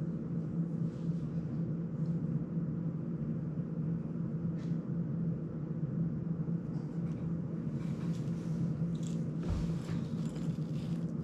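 Steady low hum at an even level, with faint light clicks and rattles of small parts being handled on a workbench, and a soft knock about nine and a half seconds in.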